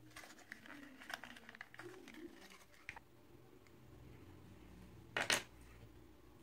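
Faint rustling and light clicks of hands handling craft materials on a tabletop, then a short, sharp double knock about five seconds in as a glue tube is set down on the table.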